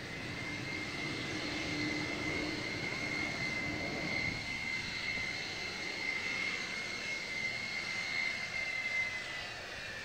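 F-4EJ Kai Phantom II jet engines at taxi power: a steady high-pitched turbine whine over a broad rushing roar. It grows a little louder about a second in.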